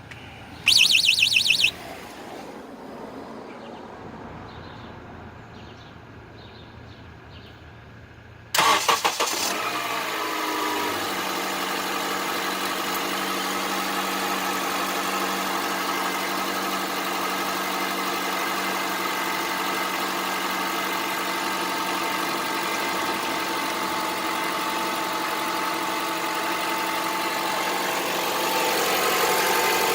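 Honda CR-V 2.4 engine started from cold. It catches about eight seconds in, its revs fall over the next two seconds, and it settles to a steady idle with the knock the owner calls very loud, like a diesel. About a second in there is a brief loud, rapid, high-pitched chatter.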